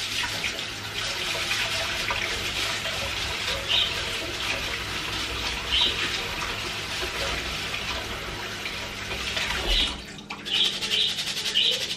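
Kitchen tap running water over rice in a strainer at the sink as the rice is rinsed. The flow stops about ten seconds in, followed by a few short splashes.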